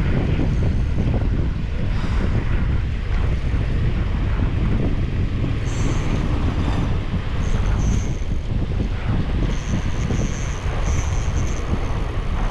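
Wind buffeting the microphone: a steady, rough low rumble, with a faint high-pitched buzz coming and going several times over it.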